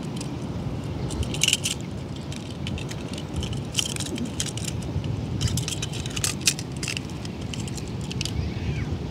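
Small die-cast toy cars clicking and clacking against each other as a hand handles them, in irregular bunches of sharp taps, over a low wind rumble on the microphone.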